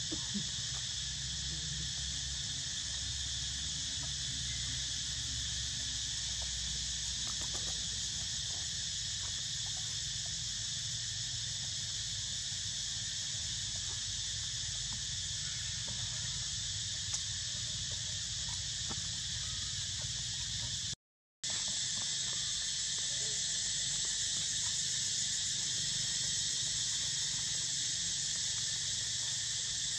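A steady, high-pitched buzzing insect chorus that holds without a break, cutting out for a moment about two-thirds of the way in.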